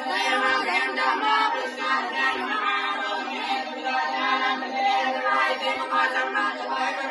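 Several voices chanting Hindu puja mantras together in a continuous, overlapping recitation.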